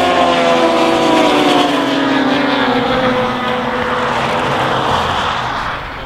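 A pack of race motorcycles running hard through a corner, several engine notes overlapping at high revs and sliding down in pitch as the bikes pull away. The sound fades near the end as the last bike leaves.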